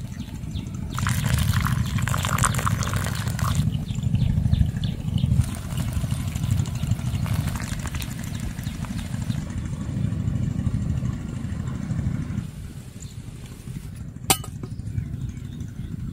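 Water poured from a kettle onto coffee grounds in a woven bamboo filter basket. It splashes for a few seconds about a second in, then goes on as a softer trickle, over a steady low rumble. A single sharp click comes near the end.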